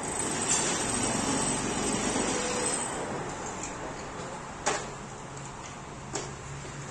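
Workshop background noise: a steady rushing, louder for the first few seconds and then easing off, with two sharp knocks about a second and a half apart near the end.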